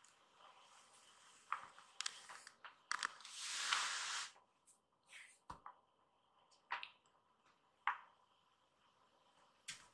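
Kittens playing on a tatami mat: scattered light taps and scuffs of paws and toy. A louder rustling scrabble lasts about a second, starting about three seconds in.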